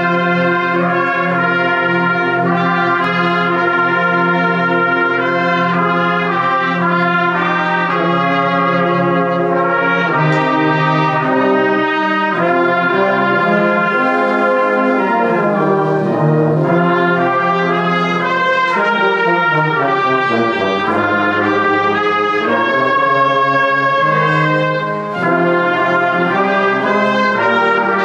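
Brass band with flutes playing a piece in full, sustained chords, trumpets, trombones and tuba sounding together, with one brief dip in loudness near the end.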